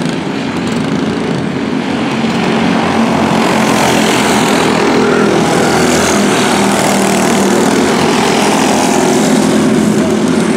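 A pack of racing go-karts' small single-cylinder engines running hard together, their overlapping drones blending into one steady buzz. It grows louder after about two seconds as karts come closer.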